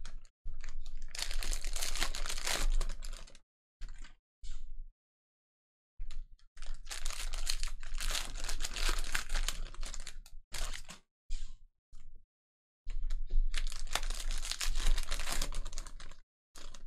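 Plastic-wrapped trading card packs being handled and torn open. The wrapping crinkles and tears in three bursts of a few seconds each, with short crackles between them.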